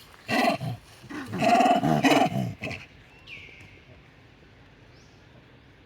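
Baby monkey screaming angrily: a short loud call about a third of a second in, then a longer call lasting about a second and a half.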